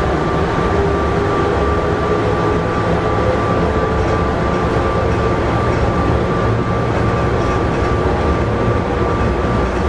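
Airport underground people-mover train running through its tunnel, heard from inside the car: a steady rumble and rushing noise with a steady high whine over it.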